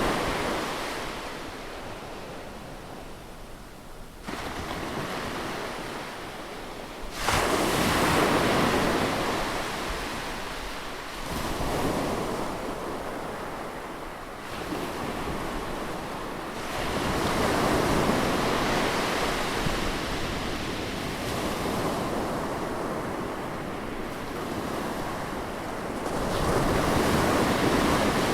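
Ocean surf: waves breaking on a beach and washing in one after another, swelling and ebbing, with the strongest surges about seven seconds in and near the end.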